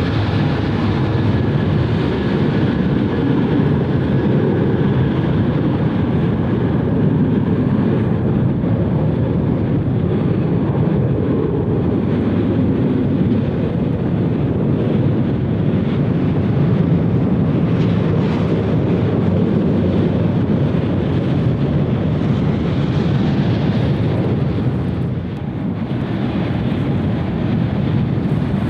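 Steady jet aircraft engine noise from a plane moving on a wet runway, mixed with wind buffeting the microphone.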